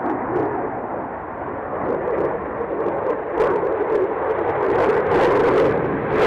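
Aircraft engine noise: a steady rumble that slowly grows louder, then swells sharply louder and brighter right at the end.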